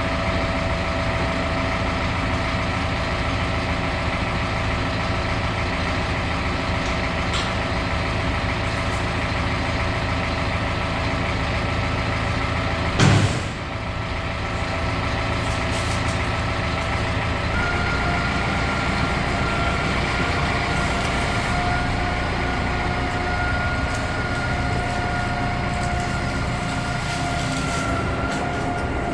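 An engine running steadily with a high whine over it; the whine steps up in pitch a little over halfway through. One sharp knock about 13 seconds in.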